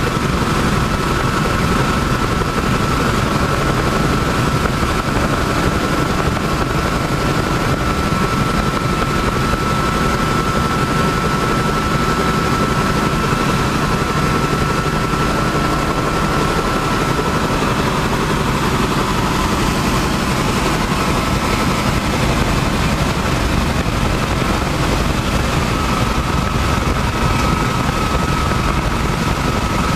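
Helicopter in cruising flight heard from inside the cabin: a steady loud rumble of rotor and engine with a constant high whine over it.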